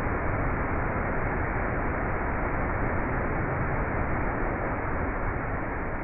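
Steady rushing roar of a large waterfall plunging into a rocky pool, an even wash of falling water.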